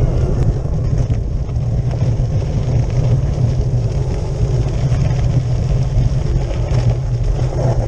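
Loud, steady wind rumble and buffeting on a handlebar-mounted camera as a cyclocross bike is ridden fast over a dirt and gravel track, with tyre noise and a few faint rattles from the bike.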